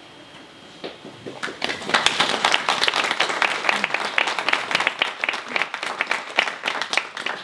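A small audience applauding by hand. It begins with a few claps about a second in, then quickly fills out into steady applause.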